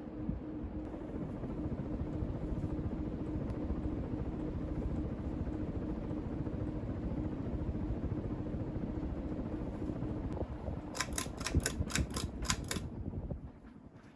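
Vintage Emerson-built Turn of the Century ceiling fan with a KB55 motor running, a steady motor hum under the even rush of its blades. About 11 seconds in, a quick run of about seven sharp clicks, then the sound falls away.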